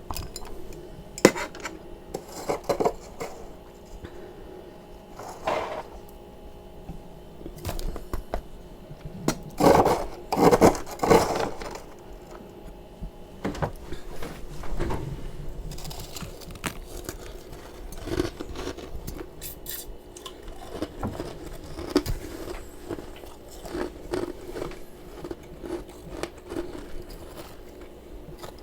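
Freezer frost being scraped and crunched, irregular scrapes, crackles and clicks, with the loudest cluster about ten seconds in.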